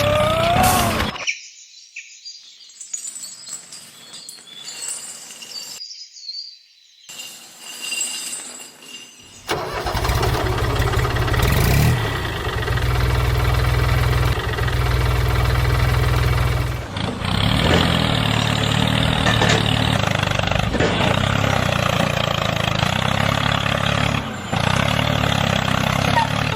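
Engine running steadily, heard across several cut-together clips. There is a quieter, thinner stretch in the first third, then a louder steady run with a deep hum.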